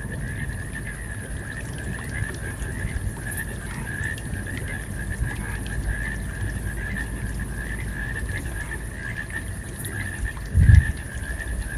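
Car driving at moderate speed, heard inside the cabin: a steady low rumble of tyres and engine, with a thin wavering high trill running over it. A short low thump comes near the end.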